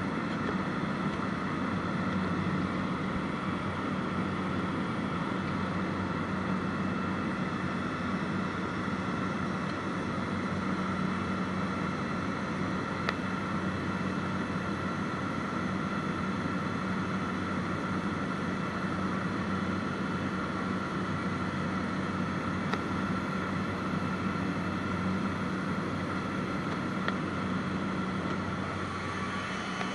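Steady engine-and-propeller drone of a small high-wing propeller aircraft in cruise, heard inside the cabin, with a low hum and a higher whine over rushing air noise. It dips slightly near the end.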